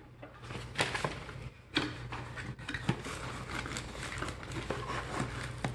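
Small cardboard box being handled and its flaps pried open: scattered scrapes, rustles and a few sharp taps of cardboard.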